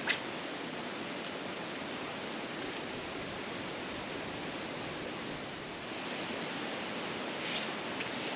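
Creek water rushing steadily, the stream running high after storms. A brief click near the start.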